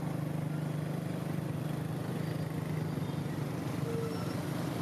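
Dense motorbike traffic: many small motorbike engines running together in a steady drone.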